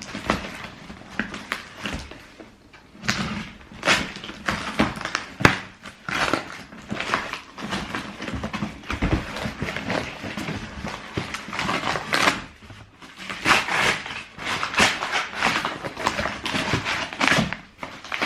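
A cardboard box and its paper wrapping being handled and torn open: irregular rustling, crinkling and scraping.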